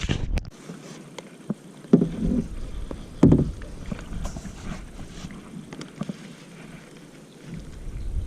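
Handling noises in a kayak: scattered small clicks and knocks, with two short louder sounds about two and three seconds in, as tangled fishing gear is worked free.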